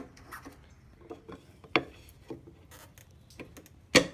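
Wooden knocks and light clatter as a pivoting wooden support brace under a plywood outfeed table is moved and set by hand. There is a sharp knock a little under two seconds in, and the loudest knock comes near the end.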